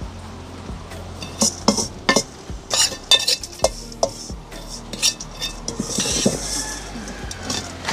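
Metal spoon scraping and clinking against a frying pan while scooping out a crumb topping: a string of sharp taps and scrapes, with a longer scrape about six seconds in.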